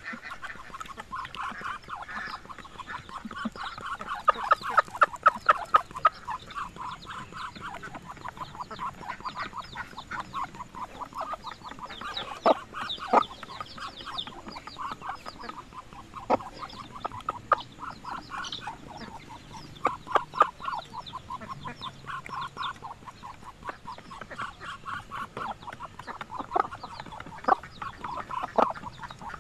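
A mixed flock of ducks and chickens calling while they forage in grass: a steady stream of short clucks and quacks, with a fast run of loud calls about four seconds in.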